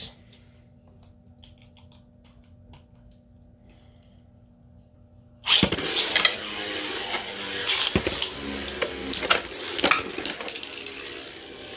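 Faint ticks in near quiet, then about five and a half seconds in Beyblade Burst tops are launched into a plastic stadium and spin and clash, with many sharp knocks as they hit each other and the walls.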